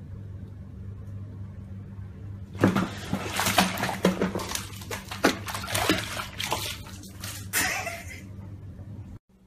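Water splashing and sloshing in a bubble-filled bathtub as a cat falls in and thrashes about, a busy run of splashes starting about two and a half seconds in and lasting several seconds. A steady low hum underlies it and stops abruptly near the end.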